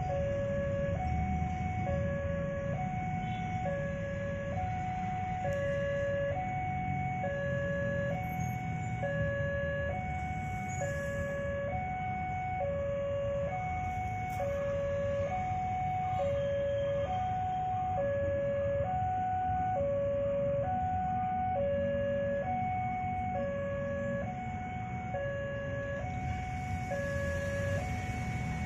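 Railway level-crossing warning alarm sounding a steady two-tone hi-lo signal, each tone held about a second, over a low rumble of idling motorcycles and road traffic.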